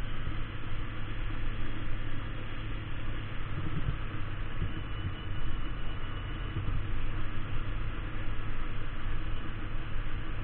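Kawasaki Ninja 250 parallel-twin engine running steadily while riding, mixed with a rushing hiss of wind over the microphone that makes the level jump.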